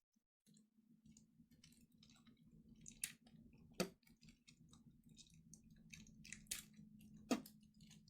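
Faint crinkling and clicking of a package being bitten and torn open with teeth, with a few sharper snaps, over a low steady hum.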